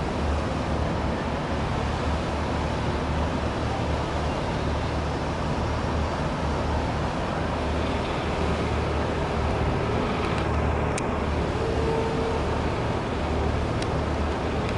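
Steady low rumble of marine engines with the rush of water churned up by a catamaran fast ferry's waterjets as it manoeuvres.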